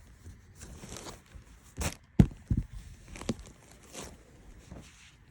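Handling and rustling of T-shirts being sorted from a storage bin, with scattered soft knocks and one sharp knock about two seconds in.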